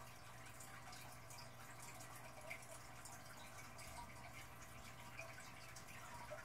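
Faint dripping and trickling of aquarium water, with a scatter of small drips over a low steady hum.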